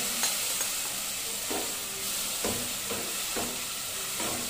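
Roasted vermicelli sizzling in a metal pot just after liquid has been poured in, while a steel spoon stirs it, giving a series of scrapes and knocks against the pot.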